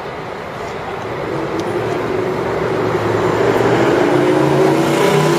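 City street traffic, with a vehicle's engine growing steadily louder as it draws near over the second half.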